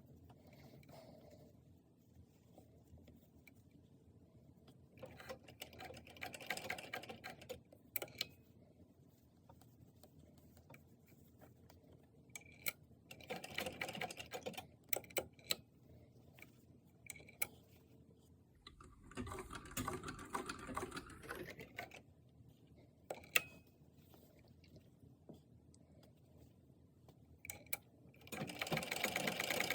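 Sewing machine stitching in several short runs, with scattered clicks and handling between them, then a louder continuous run starting near the end.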